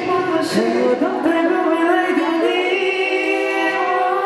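A song with singing, long held notes that glide between pitches.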